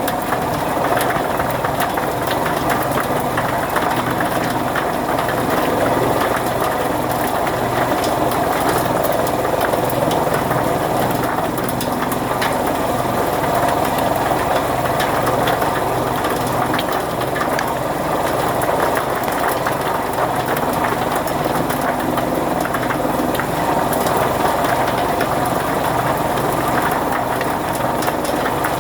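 Fodder chaff cutter (kutti machine) running steadily: a constant engine drone with a fast, dense clatter.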